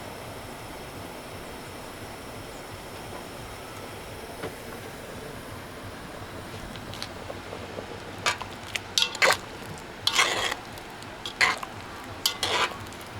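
Food frying in a pan on a portable gas stove, a steady hiss. From about eight seconds in, a utensil scrapes and clinks against the pan about six times.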